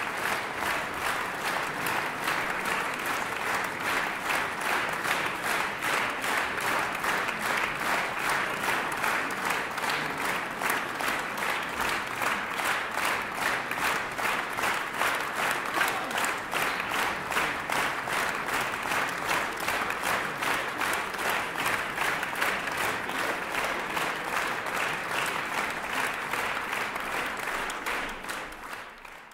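Concert hall audience applauding, dense continuous clapping that fades out near the end.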